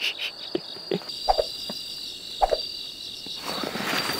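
Crickets and other insects chirping steadily in a high, pulsing chorus, with two short, lower sounds about a second apart.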